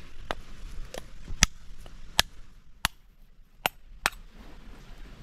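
Machete striking a husked coconut with about eight sharp, irregularly spaced knocks, cracking the shell open.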